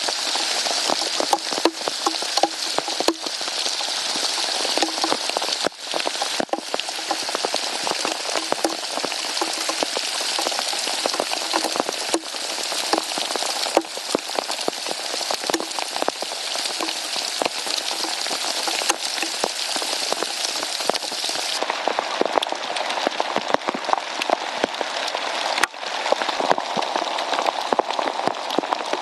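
Heavy thunderstorm rain pouring down, a dense patter of drops striking surfaces. About three quarters of the way through the sound turns duller.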